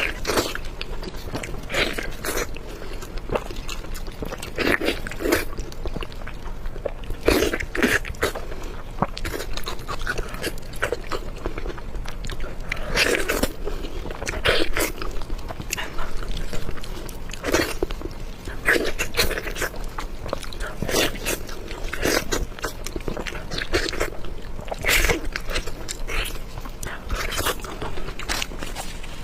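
Close-miked eating of spicy pork belly: bites and chewing at an irregular pace, with sharp wet smacks and clicks.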